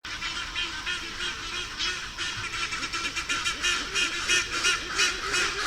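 Black-and-white hornbill giving a rapid series of short honking calls, about three a second, growing denser and louder after about two seconds.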